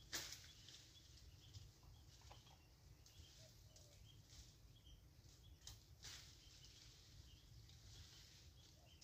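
Near silence: faint outdoor ambience with soft, scattered high chirps and a few light rustles, one just at the start and two more around six seconds in.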